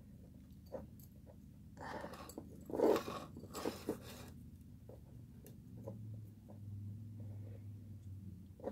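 Soft rustling and scraping of thin craft wire being handled and wrapped around a glass bottle neck, in three short bursts with a few small clicks. A low steady hum comes in about six seconds in.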